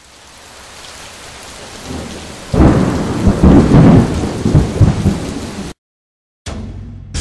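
A rushing noise that builds steadily, then breaks into a loud, uneven rumble like thunder with rain about two and a half seconds in, and cuts off abruptly near the end.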